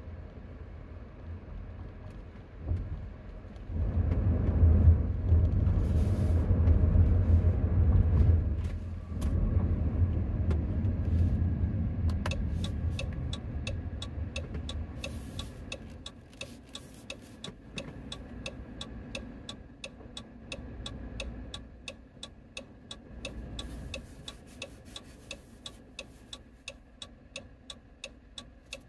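Engine and road noise inside a 2018 Dodge Grand Caravan's cabin, swelling for several seconds as the van drives on, then settling as it comes to a stop. From about twelve seconds in, the turn signal ticks steadily, two to three ticks a second.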